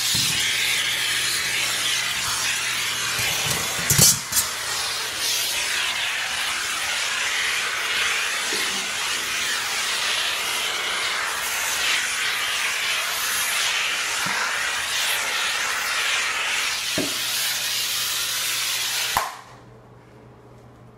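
Vapor steam cleaner blowing steam through its hose tool, a loud steady hiss, with a sharp knock about four seconds in. The steam cuts off abruptly about a second before the end.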